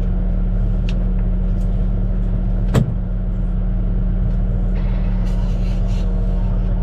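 Shantui bulldozer's diesel engine running steadily with a deep drone, and a single sharp knock about three seconds in.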